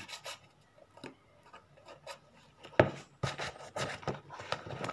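A leather shoe being handled, with a few light knocks and one sharp knock about three seconds in. After that, a hand starts rubbing briskly over the leather upper in quick strokes.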